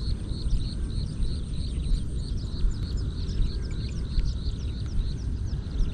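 Outdoor field ambience: a steady low rumbling noise with a high chirp repeated about three to four times a second, likely from a bird.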